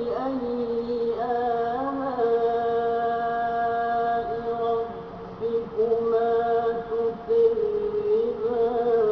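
A single voice chanting Quranic recitation in Arabic, with long held notes and slow pitch bends, and a short pause for breath about halfway through.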